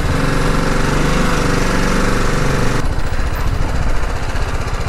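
BMW G 310 GS's single-cylinder engine running as the motorcycle rolls slowly. About three seconds in it changes to an idle with a rapid, even beat.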